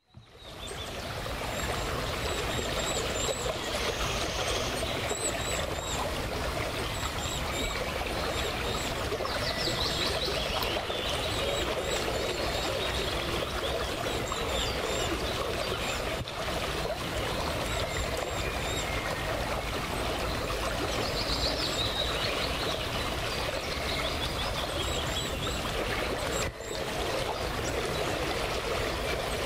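River water flowing and splashing steadily, with small birds chirping and singing over it: many short high chirps and a few brief trills. The sound fades in at the very start.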